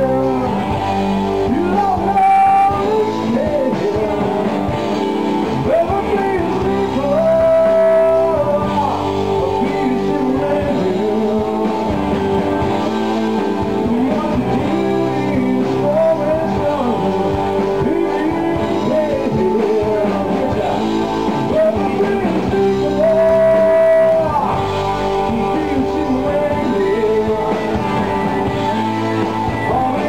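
Live rock band playing with electric guitars, bass guitar and drums. A melody line holds long notes twice over a steady full band.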